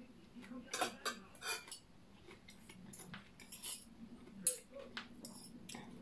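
Metal fork and spoon clinking and scraping against ceramic plates in scattered, irregular clicks, the sharpest about four and a half seconds in.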